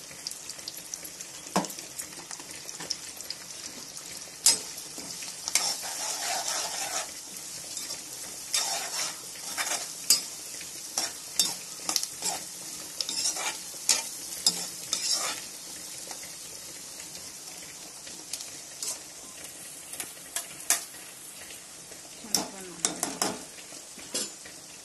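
Chopped onions, green chillies and curry leaves sizzling in hot oil in a kadai, with a spoon scraping and clicking against the pan as they are stirred. The stirring comes in spells, easing off for a few seconds in the middle before picking up again near the end.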